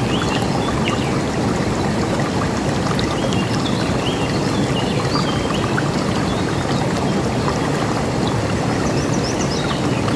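River water rushing steadily, with small birds chirping now and then over it, the chirps coming more often near the end.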